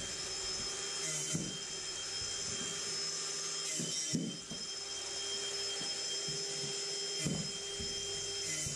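Cordless angle grinder spinning at speed with a steady high whine, its disc cutting through plastic packing straps with a few brief sharp snaps.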